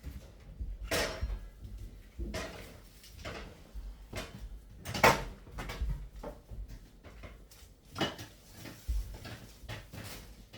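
Kitchen clatter: a string of separate knocks and clunks as things are handled and set down, the loudest about five seconds in.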